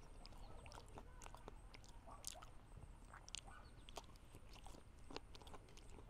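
Faint chewing of meat, with scattered small mouth and utensil clicks at an uneven pace.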